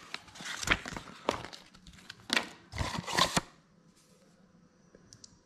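Paper inserts and packaging rustling and crinkling as they are handled, in several bursts, stopping about three and a half seconds in; a couple of faint clicks follow near the end.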